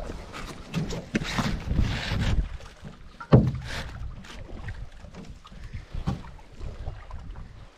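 Canoe paddles dipping and pulling through calm lake water, with splashing strokes and a single sharp knock about three seconds in.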